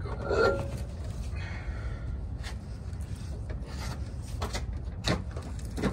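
Gold Dayton wire wheel being pulled off the car's hub, metal and tyre scraping as it slides off, with a louder scrape about half a second in and a few sharp clicks near the end.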